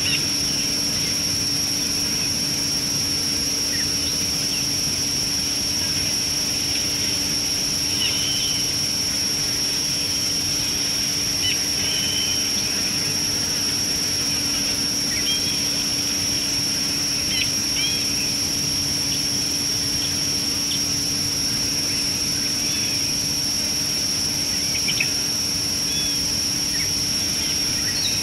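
Outdoor bush ambience: a steady high-pitched insect drone over a constant hiss, with faint short bird chirps every few seconds.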